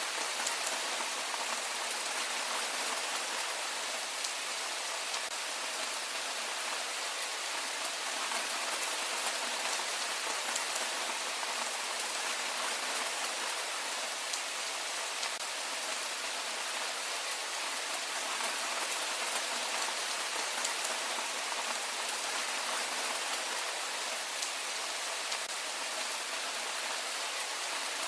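Heavy rain falling steadily: an even hiss with the faint patter of individual drops.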